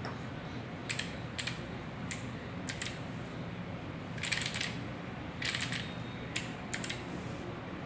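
Keys of a mechanical keyboard pressed singly at an irregular pace, each press a short sharp click, with a few quick clusters of clicks in the middle, over a steady low hum.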